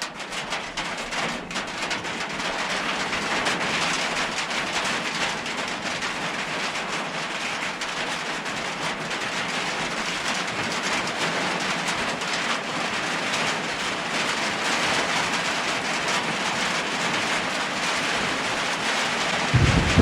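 Rain falling steadily: an even hiss of many drops with fine ticks running through it.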